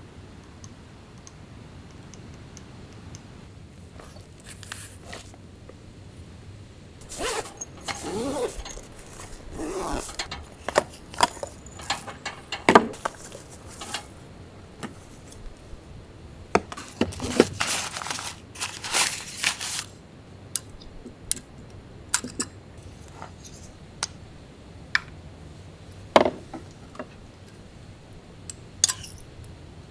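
Camping gear handled on a table: scattered rustling, scraping and small metallic clinks and knocks, with a gas canister clicked onto a small burner stove near the end.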